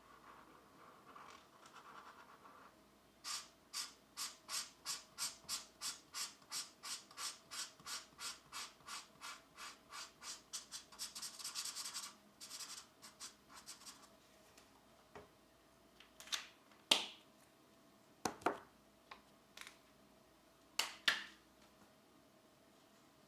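Colored pencil scratching across paper: a run of quick back-and-forth shading strokes, about three a second, then a few single strokes near the end.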